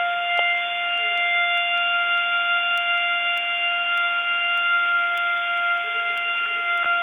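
Planet Fitness lunk alarm sounding one steady, unbroken tone, heard over a phone call.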